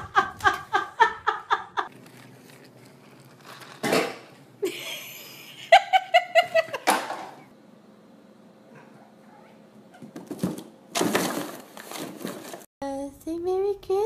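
People laughing in short rapid bursts, at the start and again about six seconds in, with a voice gliding up and down in pitch near the end.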